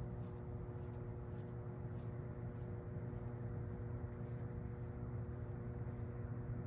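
Steady electrical hum from a hydroelectric dam's powerhouse equipment: a low hum with several evenly spaced overtones over a faint low rushing.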